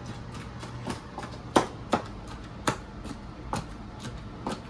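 Wooden pestle pounding green chillies, ginger and garlic in a small wooden mortar: separate, uneven knocks about once a second, starting about a second in.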